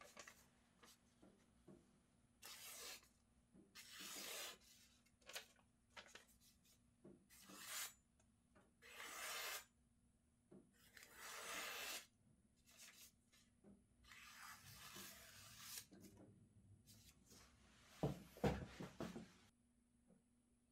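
Paper rubbed along the steel blade of an usuba knife in a series of separate swishing strokes, wiping the blade clean. A few louder handling knocks come near the end.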